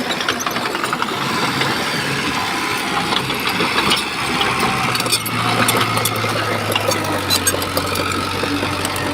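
Shantui bulldozer's diesel engine running steadily under work, with scattered metallic clanks and rattles. Its low drone grows steadier and stronger about five seconds in.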